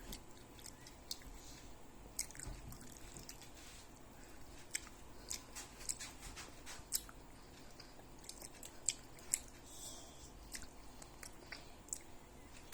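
A person chewing close to the microphone: faint, irregular small clicks and crunches.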